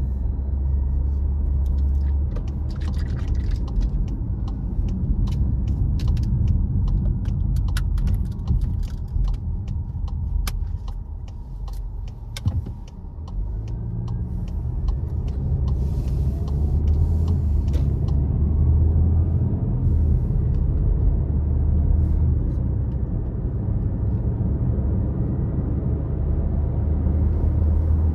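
Car driving, with a steady low engine and road rumble. Sharp clicks and rattles come scattered through the first half. About twelve seconds in the rumble dips briefly, then the engine's pitch rises as the car speeds up again.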